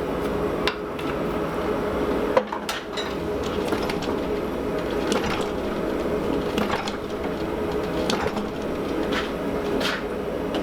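Fly press striking a hot 4140 steel disc: short metallic blows about every second and a half, over a steady noise from the running forge.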